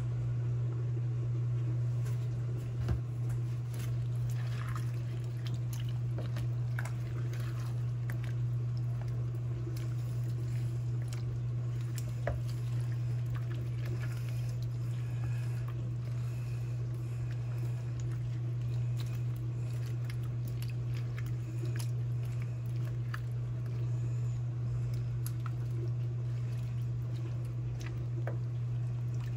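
Plastic spatula stirring thick, chunky vegetable-and-beef soup in a ceramic slow-cooker crock: wet squishing and light scraping with scattered small clicks, over a steady low hum.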